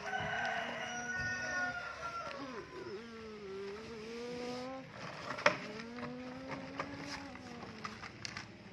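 A child's voice humming a long, wavering engine-like drone while pushing a toy tractor, in two long stretches with a short break about five seconds in. A sharp knock of the plastic toy sounds just after the break.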